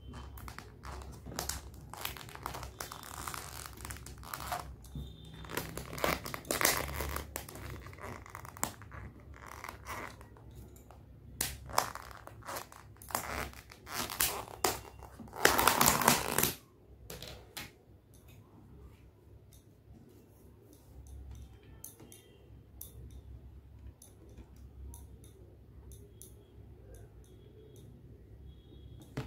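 Crinkling and crackling of a clear plastic lid being pried and peeled off a black plastic takeaway food container, with a loud crackle about halfway through; after that only sparse, quieter clicks.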